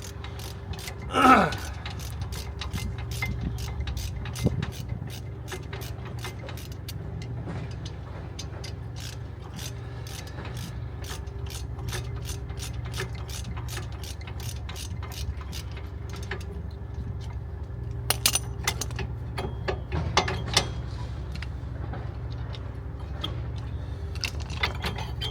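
Hand ratchet clicking in a steady run of sharp clicks, a few a second, as a brake caliper bolt is wound out. A short, loud falling tone about a second in, and a few louder metallic clinks later on.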